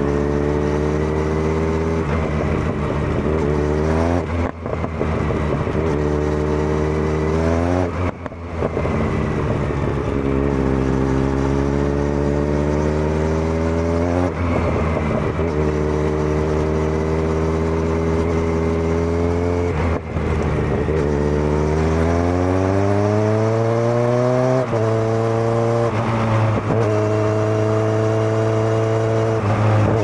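Kawasaki Z900's inline-four engine under way through a Zard full exhaust system, revving up through the gears. The note breaks off at gear shifts about four and eight seconds in, holds fairly steady in the middle, then climbs again with further shifts near the end.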